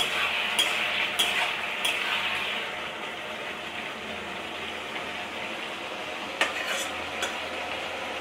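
Ridge gourd pieces sizzling in a metal kadai as a spatula stirs them, with a steady sizzle underneath. The spatula scrapes and clinks against the pan a few times in the first two seconds and again about six and a half seconds in.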